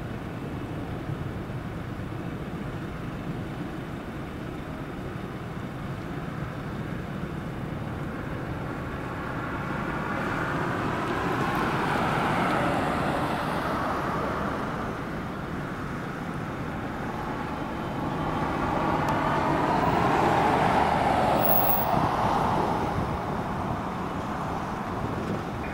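Jet engines of an EVA Air twin-engine widebody at takeoff thrust, heard from behind as it rolls down the runway: a steady rumble that swells about halfway through and again near the end.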